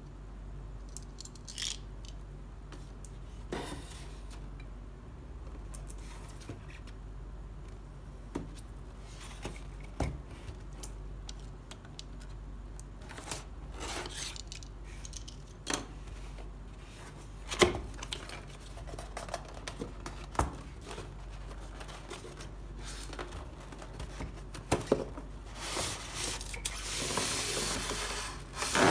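A cardboard box being handled and worked at with a snap-off utility knife: scattered taps, clicks and scrapes, then a few seconds of continuous scraping and rustling near the end as the box comes open.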